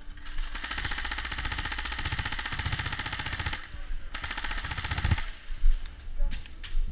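Airsoft gun firing on full auto: one long rapid burst of about three and a half seconds, a brief pause, then a shorter burst of about a second, followed by a few scattered single clicks.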